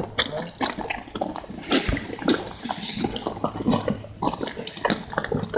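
Close, wet, irregular smacking and clicking of mouths chewing snake meat, several small sounds a second, over a steady low hum.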